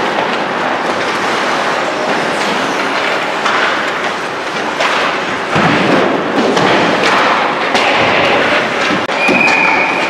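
Ice hockey practice on the rink: a steady scraping of skate blades on the ice, with scattered knocks and clacks of sticks and pucks on the ice and boards. A short, steady high tone sounds about a second before the end.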